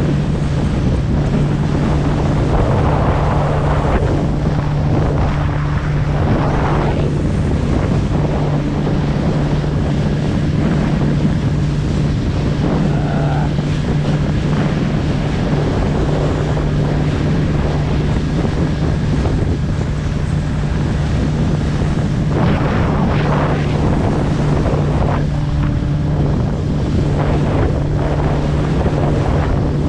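Small fishing boat's engine running at a steady pitch, half buried under heavy wind buffeting the microphone. Gusts of wind and wash swell up several times over the drone.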